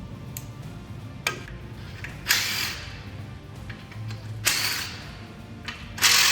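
A power tool run in short bursts of about half a second, four times, spinning out the engine's oil pan bolts, after a couple of sharp metal clicks; background music plays underneath.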